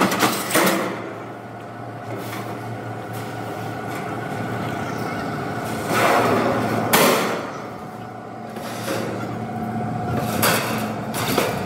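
Bent steel sheet panels clanking and scraping against each other and the metal cart bed as they are stacked on. The loudest clangs come about six to seven seconds in and again near the end, over a steady hum.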